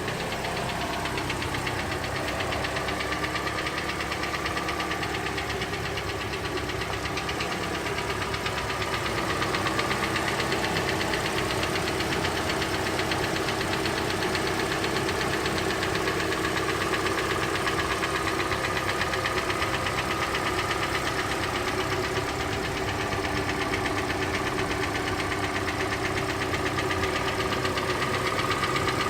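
Hyundai Elantra engine running steadily with a fast, even ticking/knocking from the engine, the fault the owner sets out to fix. The note steps up a little and gets slightly louder about nine seconds in.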